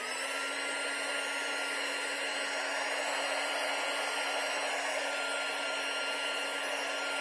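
Handheld hot air heat gun running, its fan spinning up with a short rising whine at the start and then blowing steadily with an even hum and airy rush while it shrinks heat-shrink tubing over heated-bed wiring.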